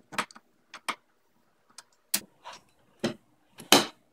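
Irregular sharp clicks and knocks of hand work on small metal hardware and wooden parts: a screwdriver working a nut and washer in a plywood bracket, and a sander drum being handled in its plywood frame. The loudest knock comes near the end.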